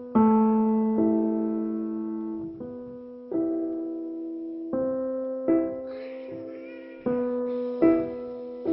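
Background music: slow piano chords, struck about eight times and each left to fade out.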